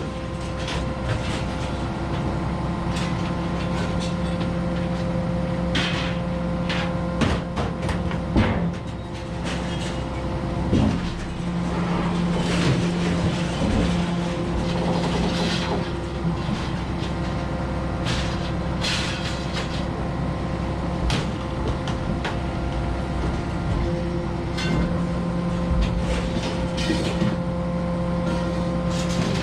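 A motor vehicle's engine running steadily, with scattered knocks and metallic clatters over it.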